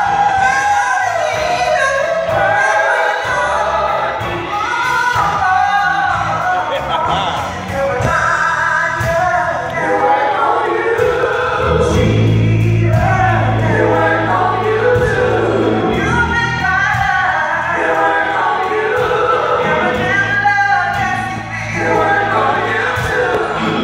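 A women's gospel vocal group singing together into handheld microphones, amplified through the church sound system, with low bass notes from the accompaniment coming in about halfway through.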